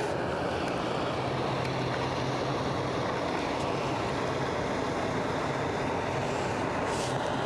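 Motorboat engine running steadily, a low even drone with a faint hum, over wind and water noise.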